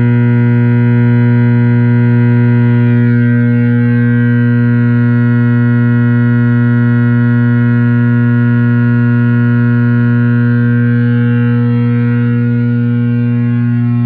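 Positive Grid Spark 40 guitar amplifier giving off a loud, steady electrical buzz and mains hum, with a guitar plugged in but not being played. This is the unwanted idle buzzing that the amp's built-in noise gate is meant to cut.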